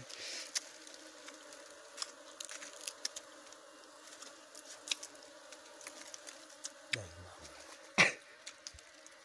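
Bees buzzing steadily around a wild nest freshly cut open in a hollow tree trunk, with scattered small crackles of leaves and twigs. There is a short, louder sound about eight seconds in.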